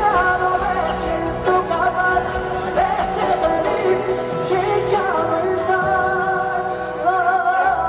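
Live pop ballad: a male singer holds long, wavering notes over the band's sustained accompaniment.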